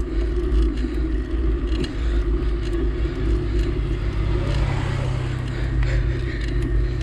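A motor vehicle's engine running steadily with a low rumble; a steadier hum sets in about halfway through.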